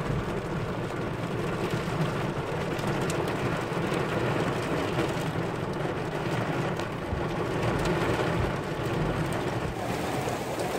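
Heavy rain pouring down in a steady downpour, a constant hiss with a low rumble underneath.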